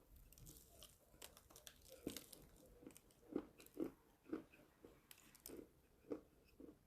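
A person biting and chewing chalk close to the microphone, giving a run of irregular crisp crunches, the loudest few in the middle.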